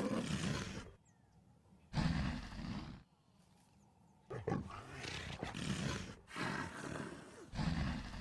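Male leopard snarling and growling in a series of harsh, noisy bursts, each about a second long with short pauses between: a defensive warning.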